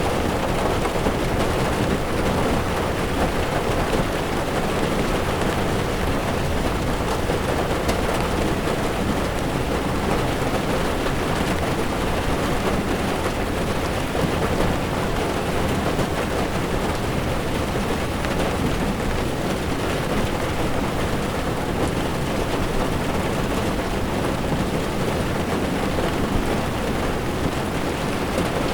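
Heavy rain falling on a moving car's windshield, with tyres running on a wet road: a steady, dense noise with no breaks.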